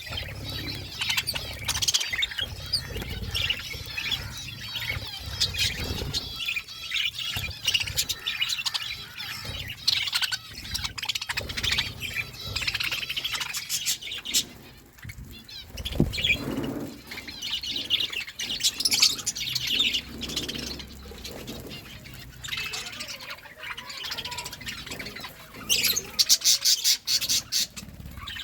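A group of budgies chattering and chirping steadily, many calls overlapping, with a run of fast, louder high chirps near the end.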